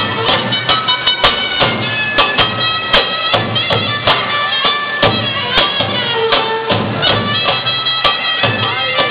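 Roma folk dance music: a loud reed wind instrument plays an ornamented, wavering melody over a steady percussion beat.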